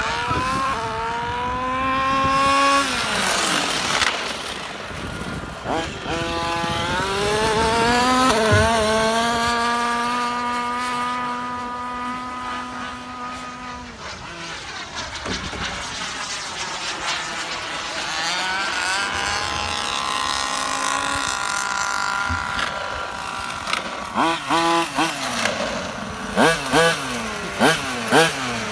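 Small two-stroke gasoline engine of a 1/5-scale Losi 5IVE-T RC truck running at high revs as it drives, its pitch climbing and falling, with a long steady stretch in the middle. Near the end it gives a series of quick, short throttle blips.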